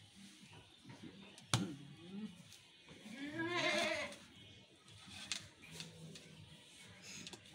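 Totapuri goat bleating: one long call about three seconds in that rises and falls in pitch. A sharp knock comes just before it, about a second and a half in.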